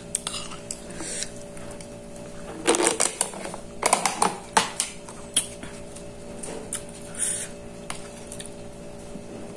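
A spoon knocking and scraping in a clear plastic bowl while a plastic container is handled: scattered light clicks and knocks, thickest in the middle, over a steady low hum.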